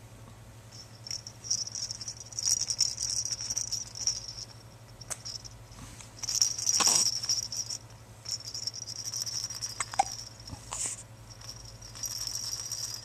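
A small pet making thin, high-pitched squeaky noises in four stretches of one to three seconds each, with a few soft clicks between.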